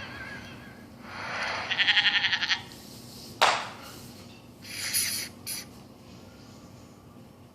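A sheep bleating once, a wavering call of about a second and a half, followed a little later by a single sharp knock.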